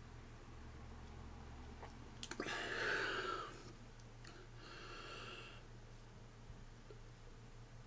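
Quiet mouth clicks followed by two breaths, the second fainter, as a man loads air into his stomach before a burp.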